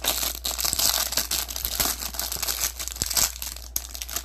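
Trading card packaging crinkling and tearing as a mini box of baseball cards is opened by hand, a dense run of small crackles and rips.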